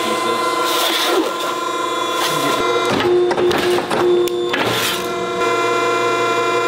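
Sheet metal being slid into place and cut on a foot-operated sheet metal shear: scraping of the sheet on the bed and a few sharp clunks of the blade coming down.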